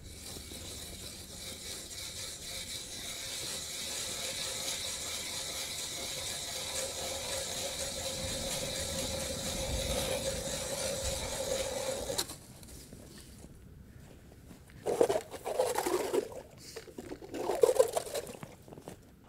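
A hand-cranked ice auger grinding and scraping steadily as it bores through thin river ice; the owner suspects its blades are worn. The grinding stops suddenly about twelve seconds in. Two short, louder scrapes follow near the end as the auger is worked in the slushy hole.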